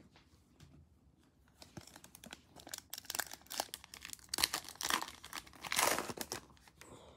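Foil wrapper of a trading card pack crinkling and being torn open. It starts about a second and a half in, with the loudest rips around the middle and again near the end.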